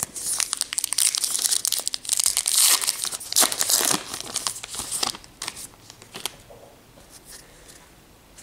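A 2018 Topps Gypsy Queen trading card pack wrapper crinkling and tearing as it is ripped open by hand, for about five seconds. It is followed by a few light rustles.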